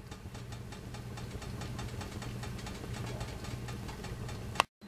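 Double boiler heating a pot of pasta in cheese sauce over boiling water: a steady low hum with rapid, faint ticking and rattling.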